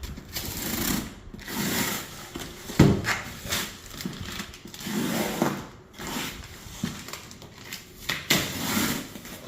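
A shipping box and its packaging being torn open by hand: a run of irregular ripping, scraping and rustling noises, with a sharp knock about three seconds in.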